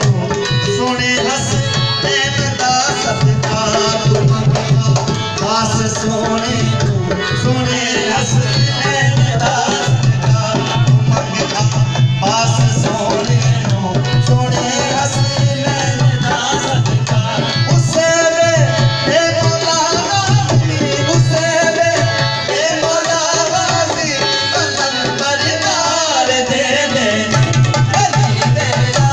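Qawwali performed live: voices singing over hand drums that keep a steady, driving beat, with held notes sounding underneath.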